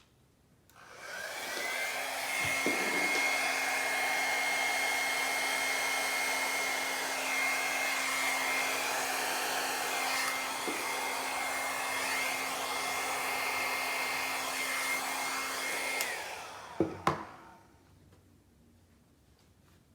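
Hair dryer switched on, spinning up with a rising whine, then running steadily for about fifteen seconds before it is switched off and winds down. Two sharp clicks follow just after it stops.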